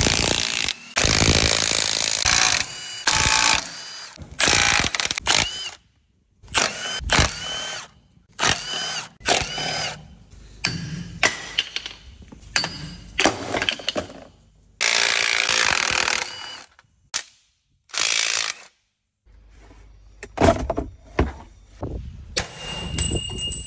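Cordless impact wrench hammering in many short bursts while undoing driveshaft flange and underbody bolts on a Toyota Hilux, its motor whine rising at the start of some bursts. The bursts start and stop abruptly, with short silences between them.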